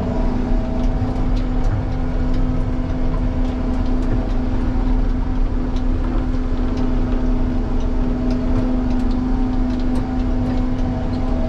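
Combine harvester's diesel engine running at a steady speed, a constant drone with a held hum, with faint light rattles over it.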